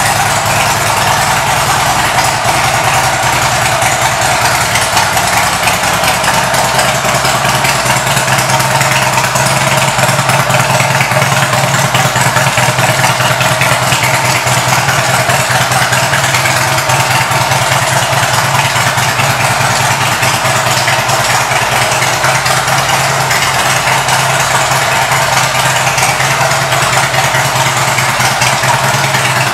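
2007 Harley-Davidson Street Glide's Twin Cam 96 V-twin engine idling steadily.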